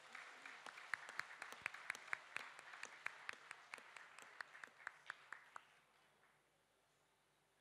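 Faint, scattered hand clapping, a few irregular claps a second, that dies out about five and a half seconds in.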